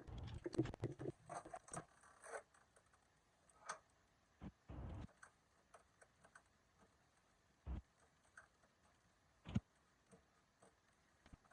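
Scattered light knocks and clicks, close together for the first two seconds or so, then a handful of single knocks a second or two apart.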